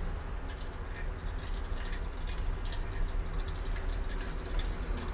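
Cooking oil in a frying pan crackling with scattered irregular pops as wet peeled boiled eggs are laid into it by hand.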